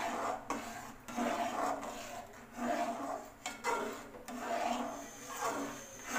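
Slotted metal spatula scraping and stirring through thin semolina halwa mixture in a metal pan, in repeated rasping strokes about once a second.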